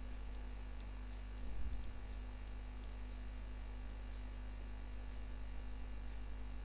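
Steady electrical mains hum in the recording, with a brief low thump about a second and a half in and a few faint ticks.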